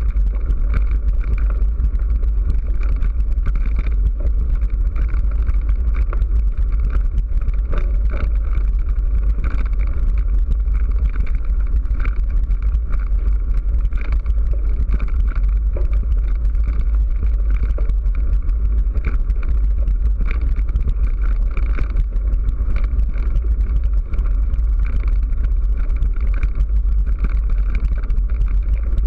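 Steady wind rumble on a bike-mounted action camera riding a rough dirt and gravel track, with tyre noise over the stones and short knocks and rattles from bumps.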